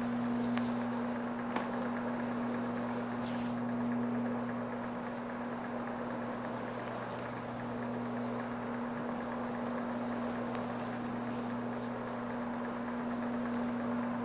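Corded low-moisture carpet-cleaning machine running steadily, its motor giving a constant hum as the microfibre scrub pad works over the carpet, with a few faint ticks and brief hisses.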